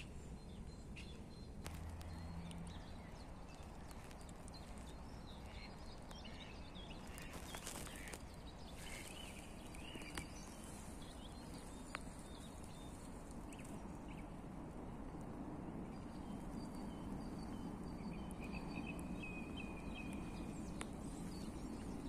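Faint chirps and short calls of small songbirds, scattered through, with a run of quick repeated notes in the later part. Under them is a steady low rumble, with a few sharp clicks.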